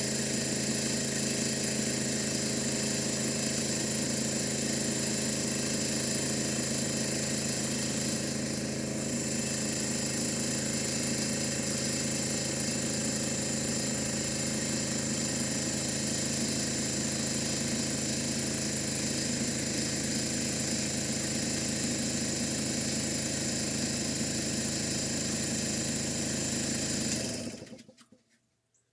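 Air compressor running steadily as it builds tank pressure, then shutting off abruptly near the end on reaching 175 psi.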